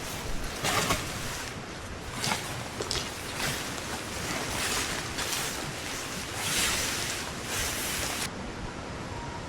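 Rushing creek water: a steady hiss with uneven louder surges. About eight seconds in it drops suddenly to a quieter, softer hiss.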